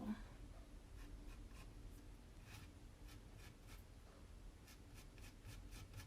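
Faint, irregular scratchy strokes of chalk paste being spread and scraped across a Chalk Couture mesh screen transfer.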